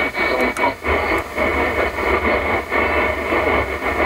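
Medium-wave AM reception on an Audi MMI Basic car radio tuned to about 1404 kHz, then stepped to 1413 kHz. It is mostly noise and static with crackles, a steady high whistle and a low hum, and no clear station.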